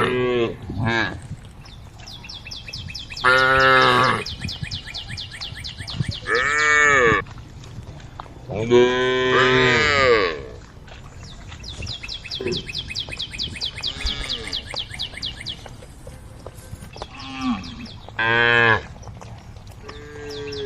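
Cattle mooing repeatedly: about seven calls of up to a second and a half each, several rising and then falling in pitch, as cows call to the herd. A fast, high, even chirping carries on in the background between the calls.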